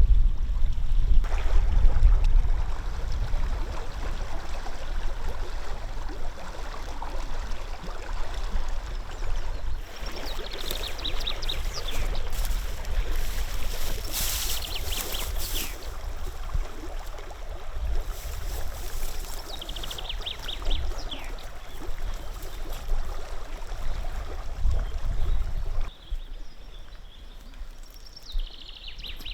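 Wild river water flowing steadily over a low rumble. Short high trills come in twice, and a burst of sharp high clicks sounds around the middle. Near the end the rumble drops away and the water sounds quieter.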